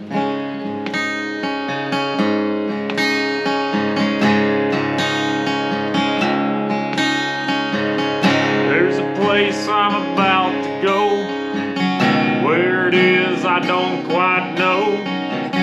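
Acoustic guitar strumming the intro to a country-style song. About eight seconds in, a melody line with bending, wavering notes comes in over the strummed chords.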